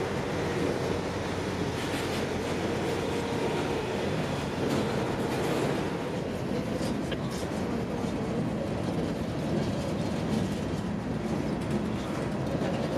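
Freight train rolling along the track: a steady rumble of cars on the rails.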